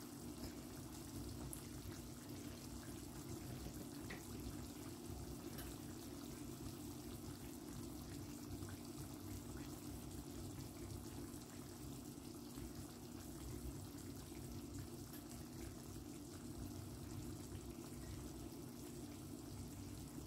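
Curry chicken sauce simmering in an electric pot: faint, steady bubbling with a few small pops.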